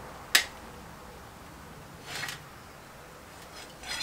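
Metal rotisserie spit being worked out of a cooked whole chicken on a metal tray. There is a sharp click about a third of a second in, then two brief scrapes, about two seconds in and again near the end.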